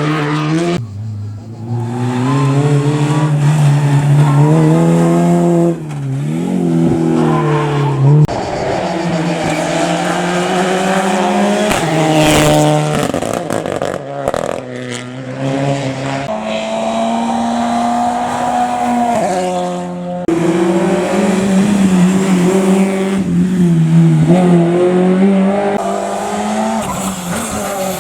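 Rally car engines at full throttle, rising in pitch and dropping at each gearshift, with tyres squealing and skidding. The sound changes abruptly several times as it jumps from one car's pass to another.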